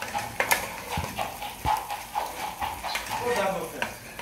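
A plastic spoon stirring a thick tomato-and-pepper sauce frying in a nonstick pot: sizzling, with repeated clicks and scrapes of the spoon against the pan.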